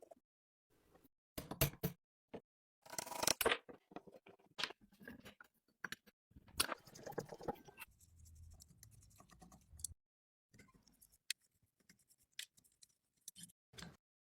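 Hand tools at work on an object: irregular short scrapes, clicks and scratchy strokes with pauses between them, some snipping like scissors.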